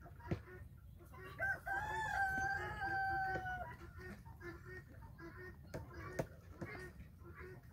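A rooster crows once, a single long call of about two seconds beginning about a second and a half in, over the continual clucking of chickens. Two sharp clicks, one near the start and one about six seconds in.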